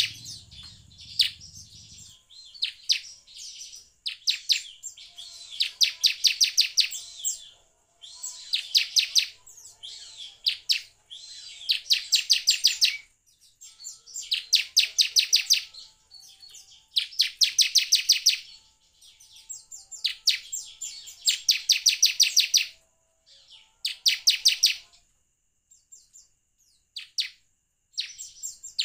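Bar-winged prinia (ciblek) singing: fast trills of evenly repeated high chip notes, each about a second long, coming every two to three seconds, with softer single chirps between. A few seconds before the end only scattered chirps are heard.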